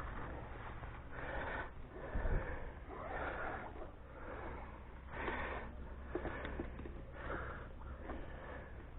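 A person breathing close to the microphone, a noisy breath or sniff about once a second over a low steady hum.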